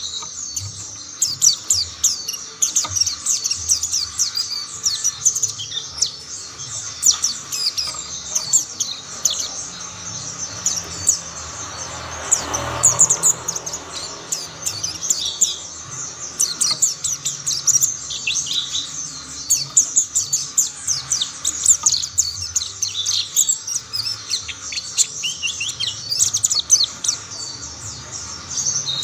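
Mountain white-eyes (pleci Monty) singing: a fast, unbroken high twittering made of many rapid chirps, with more than one bird chiming in.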